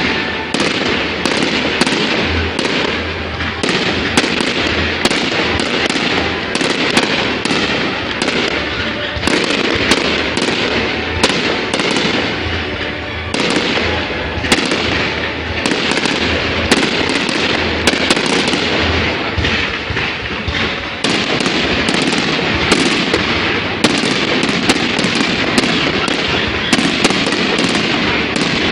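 Fireworks going off without a break: a dense crackling haze packed with sharp pops and bangs, with low booms underneath.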